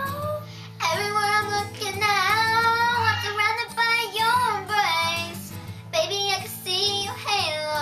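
A girl singing a melody unaccompanied by words the recogniser could catch, with held, wavering notes and short breaks between phrases.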